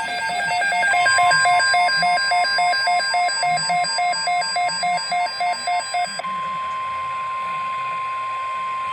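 Emergency alert tones announcing a severe thunderstorm watch: a rapid electronic beeping, about three beeps a second, over a steady high alert tone. The beeping stops about six seconds in and the steady tone carries on alone.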